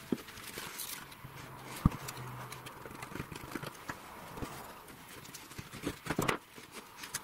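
Scattered taps and knocks of white board strips being handled on a wooden workbench, with one louder knock about two seconds in and a quick cluster of knocks near the end as the taped strips are folded up into a box frame.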